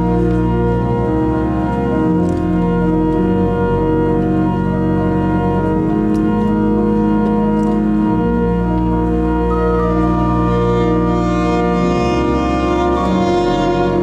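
Church pipe organ playing slow, sustained chords, with its deep bass notes changing every two seconds or so.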